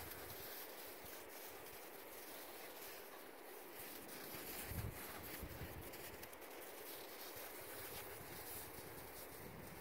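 Faint outdoor wind hiss on a snowy slope, with a brief low buffet of wind on the microphone about five seconds in.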